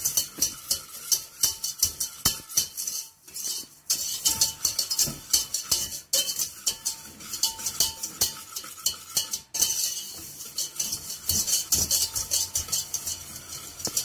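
Wire whisk beating egg and sugar by hand in a stainless steel pot, the wires clicking and scraping against the metal at a quick, steady rhythm, with a few brief pauses.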